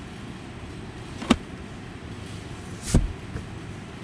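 Two plastic clicks from a car's rear-armrest pop-out cup holder being handled: a sharp snap about a second in, then a heavier knock about a second and a half later.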